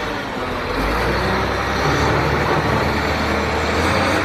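Heavy vehicle engine running steadily with a low, even rumble, like a bulldozer's diesel.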